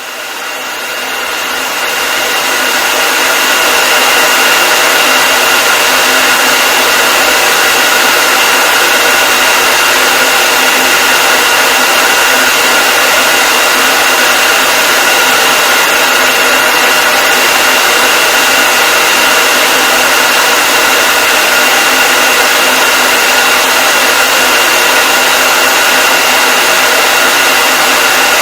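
Hair dryer running steadily: an even rushing blow with a steady whine over it. It swells up over the first few seconds, then holds constant.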